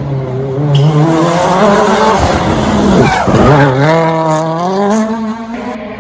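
Toyota Yaris WRC rally car's 1.6-litre turbocharged four-cylinder engine at high revs, loudest around the middle. There the revs drop sharply and climb again as the car passes close, then rise in steps as it accelerates away through the gears.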